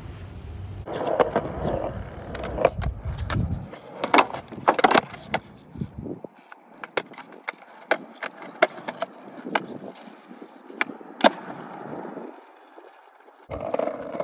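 Skateboard wheels rolling over concrete, with a string of sharp clacks of the board against the ground. The loudest crack comes a little after halfway.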